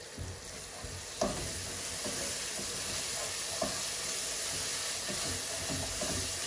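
Curry masala sizzling and frying in a hot pan, getting louder about a second in. A few knocks and scrapes come from a spoon stirring it.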